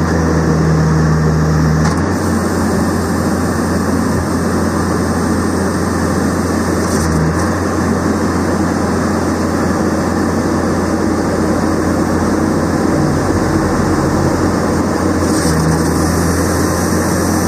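Skid-steer loader engine running steadily with a Bobcat Planer 40 cold planer attachment, a continuous engine and hydraulic drone. Its note changes about two seconds in and again near the end.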